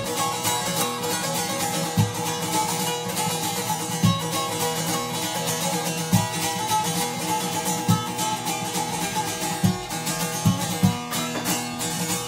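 Bağlama (Turkish long-necked saz) played solo: a plucked instrumental interlude between sung verses of a folk türkü, with a soft low knock about every two seconds.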